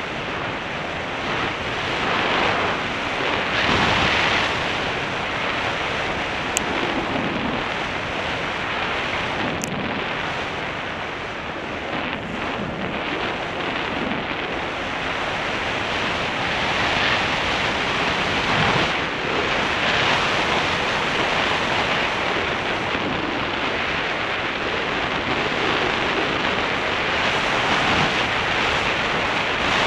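Wind rushing over the microphone of a camera riding on a moving motorcycle, a steady roar that swells and eases, with the bike's engine buried beneath it.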